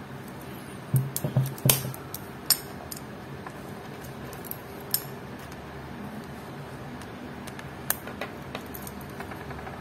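Stainless steel watch bracelet links and case clinking and clicking as the watch is handled and clamped into a plastic watch-case vise. There is a quick cluster of sharp clicks about a second in, then single clicks now and then.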